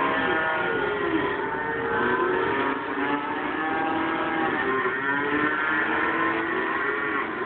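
Many calves bawling at once inside a packed livestock truck, a continuous chorus of overlapping calls.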